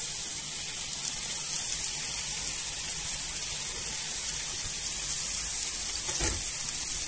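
Sliced button mushrooms sizzling in hot oil in a frying pan, a steady hiss. A soft thump about six seconds in.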